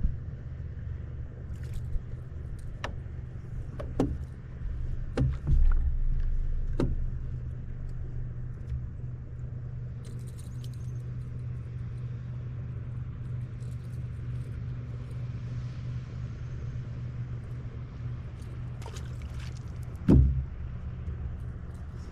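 An engine running steadily with a low hum, with a few sharp knocks and thumps in the first third and one loud thump near the end.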